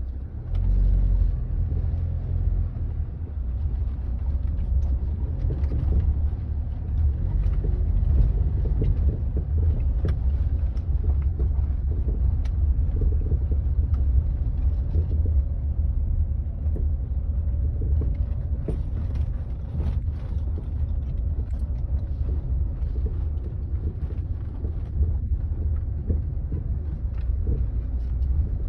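Land Rover Freelander 2 driving over uneven asphalt: a steady low road rumble with scattered sharp knocks from the rear suspension. The knocking comes from a faulty rear shock absorber strut, which the owner traces to a Kayaba strut.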